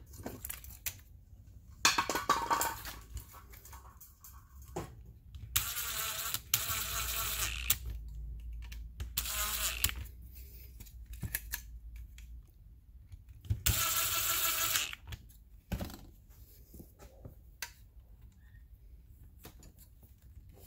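Power screwdriver running in about four short bursts of one to two seconds each as it drives screws into the plastic top cap of a 3D printed motor, with small clicks and knocks of parts being handled in between.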